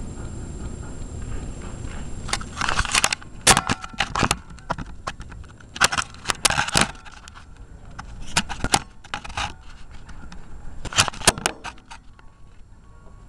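Burning transformers crackling and popping in four bursts, each about a second long, over a low steady rumble.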